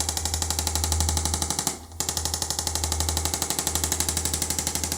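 Handheld electric percussion tool hammering rapidly against the body, about ten even taps a second, stopping briefly about two seconds in and then carrying on.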